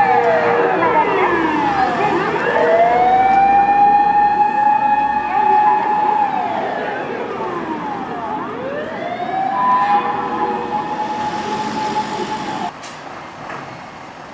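Fire rescue truck's mechanical motor siren wailing: it holds a steady pitch, winds down and spins back up twice, then stops abruptly about two seconds before the end.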